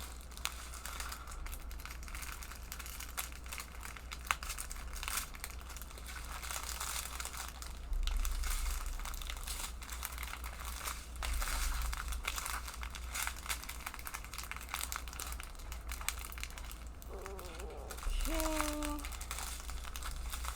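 Small plastic packets of diamond-painting drills crinkling and rustling as they are handled one after another, with small clicks throughout.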